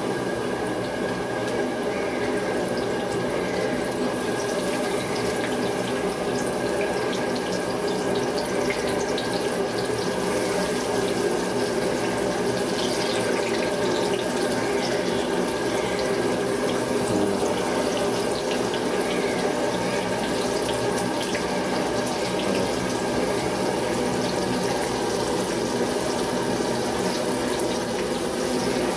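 Battered bell peppers (capsicum bajji) deep-frying in a kadai of hot oil, a steady sizzle that does not let up, with a steady hum underneath.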